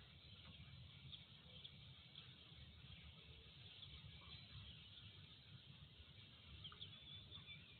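Near silence: a faint steady low rumble with scattered faint high chirps.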